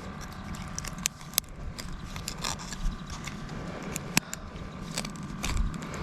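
Irregular sharp clicks and knocks of fishing tackle being handled while a stubborn hook is worked out of a landed bass, over a faint steady hum.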